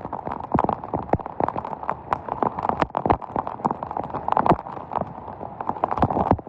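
Heavy thunderstorm rain, with many irregular sharp taps of drops striking a hard surface close by over a steady rush of rainfall.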